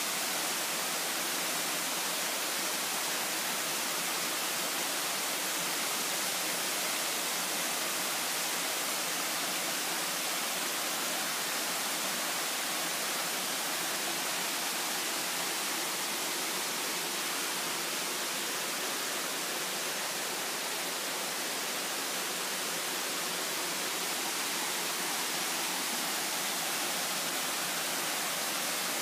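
Waterfall rushing steadily: an even hiss of falling water with little low rumble.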